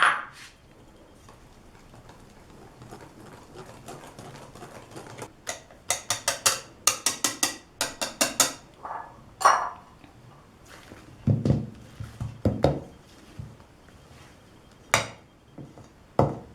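A utensil clicking quickly against a mixing bowl as lemon juice is stirred into cake batter, about four or five strokes a second for a few seconds. This is followed by a handful of separate knocks on the bowl.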